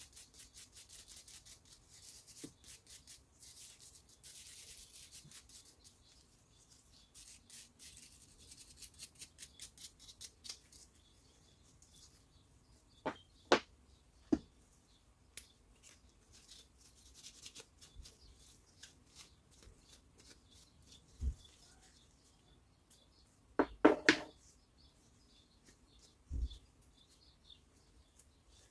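A small brush scrubbing cordless drill parts in quick, even strokes for about the first ten seconds, followed by scattered sharp clicks and light knocks as the plastic parts are handled.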